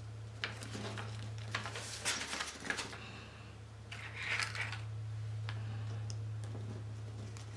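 Paper pattern piece rustling, with small clicks and taps as pins are pushed through it into the fabric beneath, over a steady low hum.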